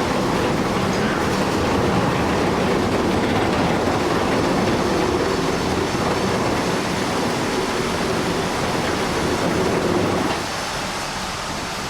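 Large excavator running, its diesel engine rumbling loudly and steadily with the clatter of its steel crawler tracks as it moves, the sound dropping somewhat about ten seconds in.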